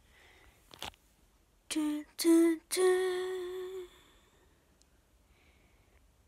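A voice humming three notes that step upward in pitch, the first two short and the last held for about a second.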